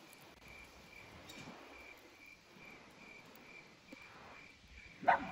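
Crickets chirping faintly, a thin high chirp repeating about three times a second. A short, louder sound cuts in just before the end.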